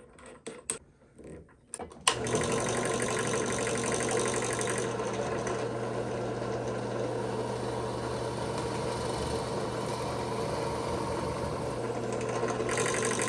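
Harbor Freight Central Machinery 5-speed benchtop drill press switched on with a click about two seconds in, its motor then running steadily while a 1/4-inch Forstner bit bores into 3/4-inch red oak. A few light clicks come before it starts.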